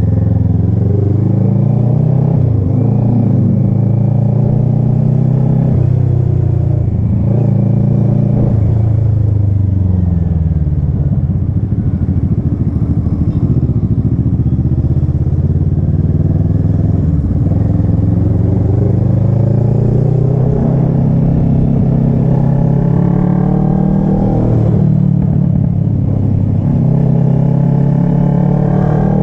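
Kawasaki ER-6n's parallel-twin engine on the move, its pitch rising as it accelerates and dropping sharply at each gear change. This happens several times, with a steadier stretch of cruising in the middle.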